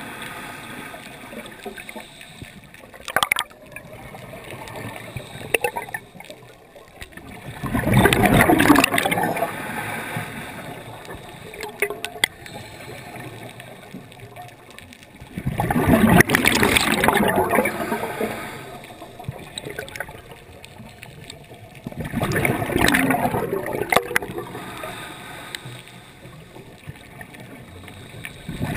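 Underwater, a scuba diver's exhaled bubbles rush past the camera in loud surges of about two seconds, coming roughly every seven seconds with each breath, over a low steady water rumble. A few sharp clicks come in between, the clearest about three seconds in.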